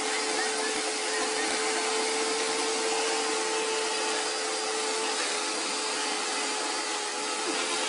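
A small engine running steadily at high speed, a constant whine over a noisy hiss, its pitch dipping slightly about five seconds in.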